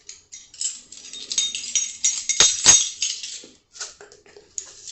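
Metal measuring spoon scraping and clinking against a container as crushed red pepper flakes are measured out, with two sharp clinks about two and a half seconds in.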